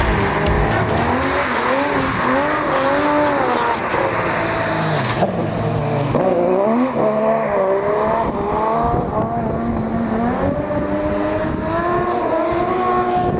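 Race-prepared Subaru BRZ with a 3-litre six-cylinder boxer engine being driven hard on track, its engine note rising and falling repeatedly as it revs up and drops back.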